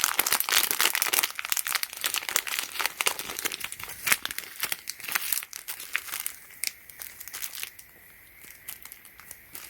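Packaging crinkling and tearing as it is opened by hand: dense crackling for about the first six seconds, then sparser, quieter rustles.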